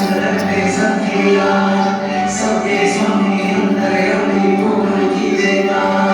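A group of voices singing a song together in unison, with musical accompaniment.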